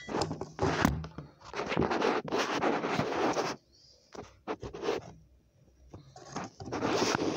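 Handling noise from a phone being moved and set down on a table: scraping and rubbing against the microphone, with a few short knocks in a quieter middle stretch and a last burst of scraping near the end.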